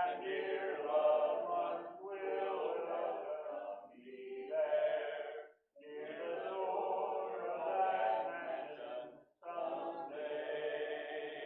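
A congregation singing a hymn a cappella, unaccompanied voices led by a man, in sung lines broken by brief pauses for breath.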